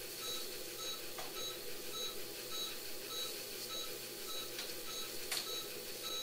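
Patient vital signs monitor beeping once per heartbeat, a short high beep a little under twice a second, following the anesthetized cat's heart rate of just over 100 per minute. A few faint clicks can be heard alongside.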